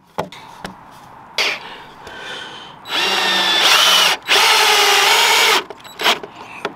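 DeWalt cordless drill driver driving a screw through a plastic decking pedestal's tab into the timber frame, in two runs of about a second each with a short pause between. A few light knocks come before the driving starts.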